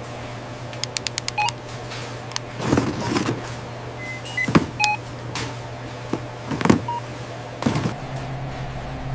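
Several short electronic beeps with a quick run of clicks, a few clattering hits and rustles in between, over a steady low hum.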